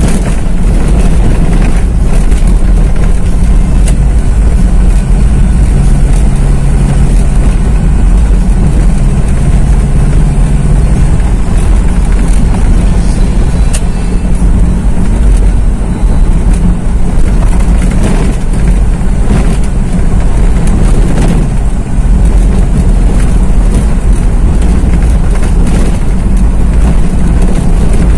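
Steady engine drone and road rumble of a moving car, heard from inside its cabin.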